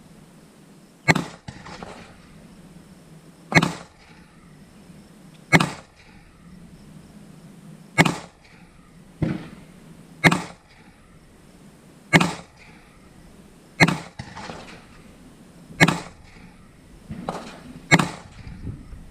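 Gunshots fired one at a time at a steady pace, about one every two seconds, ten in all, each followed by a short echo.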